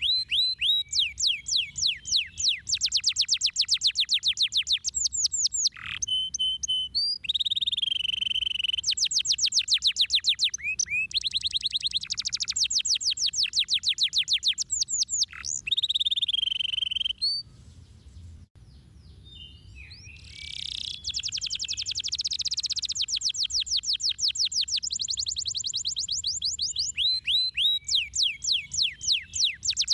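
Domestic canary singing: long runs of rapid, high trills of repeated downward-sweeping notes, with a few held, steady notes mixed in. The song breaks off for about three seconds about two-thirds through, then resumes in fast trills.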